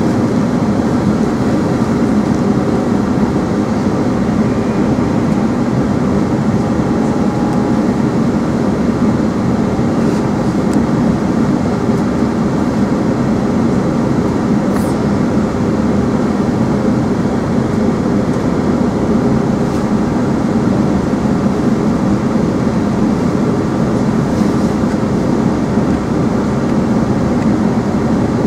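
Steady running noise heard from inside a moving passenger train carriage: an even rumble of wheels on track and running gear.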